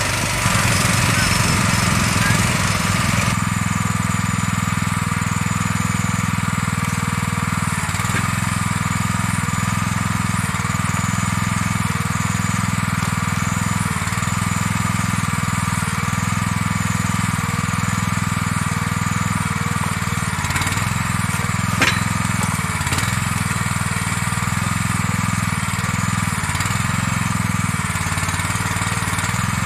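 Vahva Jussi 400 iron horse's small engine running steadily while its timber crane works, the note dipping briefly again and again. One sharp knock about two-thirds of the way through.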